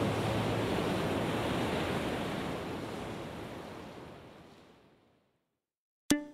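Steady rushing of ocean surf, fading out to silence about five seconds in. The first plucked notes of a music track start just at the end.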